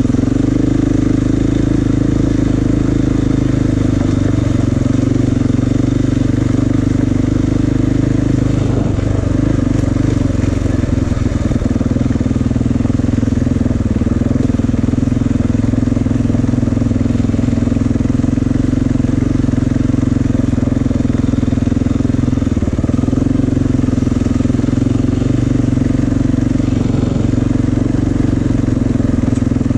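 Dirt bike engine running steadily while the bike is ridden along a gravel trail, its pitch dipping briefly a couple of times as the rider eases off the throttle.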